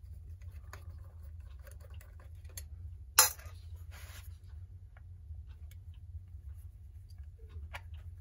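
Small metal clicks and light scraping as screws are worked out of a 1930s Hammond Riviera clock's housing with a screwdriver, with one sharp, loud click a little over three seconds in. A steady low hum sits underneath.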